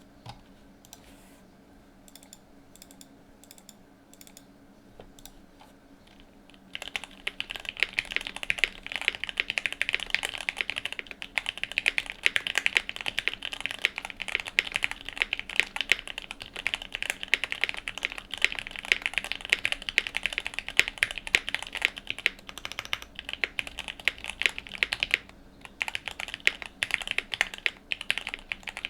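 Typing on a QK75N mechanical keyboard with a POM plate, full foam dampening, lubed Gateron Blue Bubblegum switches and GMK Dracula keycaps. A few faint clicks at first, then about seven seconds in, fast continuous typing starts, with a short pause near the end.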